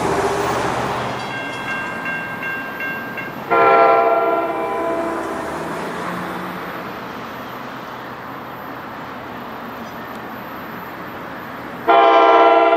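Train horn blowing a loud multi-note chord, a short blast about a third of the way in that fades over a couple of seconds, then a second blast starting near the end. Before the first blast there is a fainter high ringing that pulses steadily.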